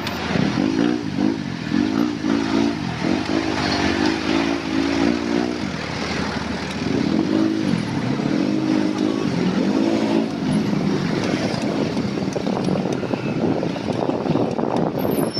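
City street traffic: a nearby motor vehicle engine revving up and down again and again over a steady rush of traffic and wind noise. The revving pauses for about a second around the middle, then starts again.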